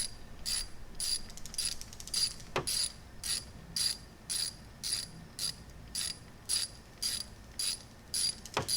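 Ratchet wrench clicking in quick strokes, about two a second, with a couple of light knocks.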